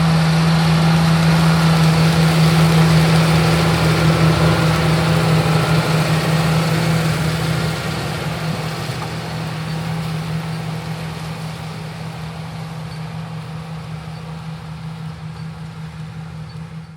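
Diesel engine of a John Deere S660 combine running at a steady drone, fading gradually over the second half.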